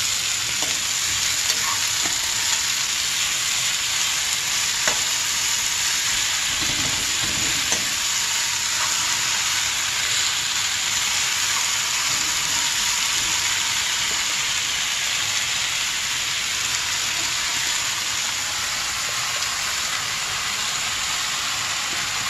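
Chopped karmi saag (water spinach) being stir-fried in a metal kadai with a metal spatula: a steady frying sizzle as the freshly added greens hit the hot oil and onions, with a few light taps of the spatula against the pan.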